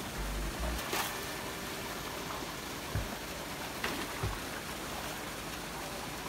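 Steady rush of water pouring from an inlet pipe into a netted fish-pond cage, with a few dull thumps and splashes as a long-handled landing net is worked through the water.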